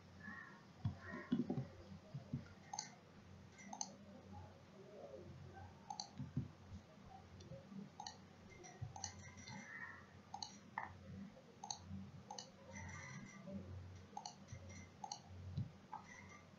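Computer mouse buttons clicking, single sharp clicks at irregular intervals, over a faint steady low hum.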